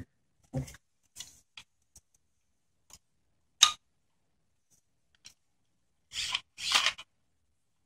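Plastic parts of a CD-ROM drive's housing clicking and scraping as the tabs are squeezed and the drive is worked out of its casing: scattered light clicks, one sharp click about three and a half seconds in, and two short scraping rubs near the end.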